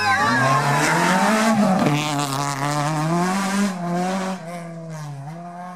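Racing engine revving up and down several times, with tyres squealing in the first second, fading away near the end.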